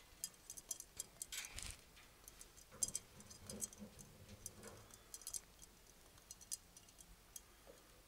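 Cockatiels preening damp feathers and shifting about in a wire cage: faint, irregular small clicks and feather rustles, with a brief louder rustle about a second and a half in.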